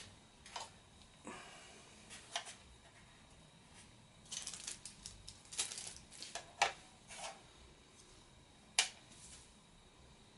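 Scattered clicks and taps of hard plastic quadcopter parts being handled as the landing gear is fitted: a cluster of quick clicks from about four to seven seconds in, and one sharp click about nine seconds in.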